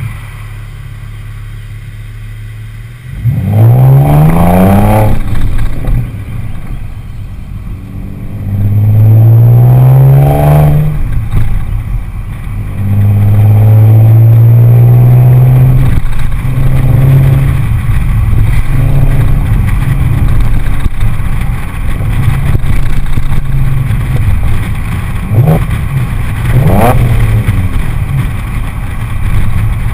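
Exhaust of a 2006 Audi A6 3.2 quattro's V6, mufflers removed with the cats and resonators left in, heard right at the tailpipes through a camera housing. It idles steadily, then about three seconds in pulls hard with a rising note that falls back, rises again around ten seconds, and settles into a steady loud drone while driving, with a few short rises in pitch near the end.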